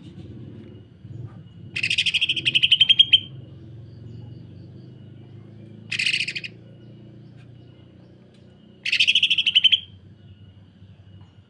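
Cucak ijo (green leafbird) giving harsh, rapid rattling calls, the sewing-machine-like 'kasaran rapat', in three bursts: a long one about two seconds in, a short one near the middle and another long one near the end. A faint low hum lies under it.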